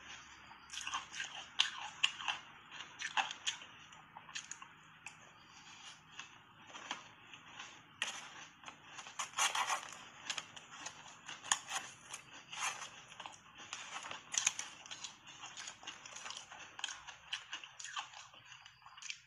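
Soft shaved ice being bitten and chewed in big mouthfuls close to the microphone: a dense, uneven run of sharp crunches.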